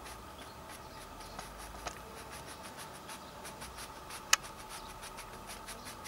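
Fingertips rubbing and dabbing oil paint on a stretched canvas, a faint, quick, repeated scratchy rubbing, with one sharper tick about four seconds in.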